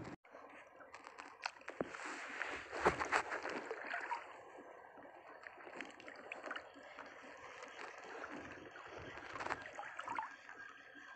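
Shallow seawater splashing and sloshing around a wading angler, with small knocks and clicks from handling the tackle. It is loudest about two to four seconds in, then settles to a softer lapping.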